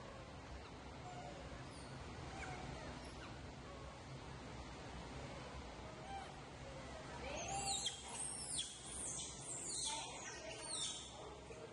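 Baby monkeys calling: faint short squeaks at first, then, from about seven seconds in, a run of about six loud high-pitched squeals, each falling in pitch.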